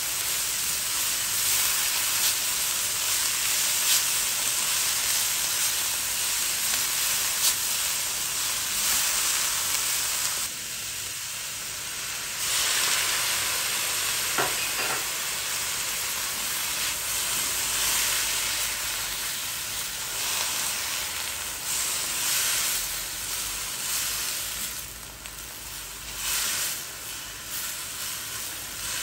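Shredded cabbage and carrots sizzling as they stir-fry in a hot stainless-steel wok and are turned with a spatula. The spatula clicks against the pan a few times. The sizzle eases a little about ten seconds in and again near the end.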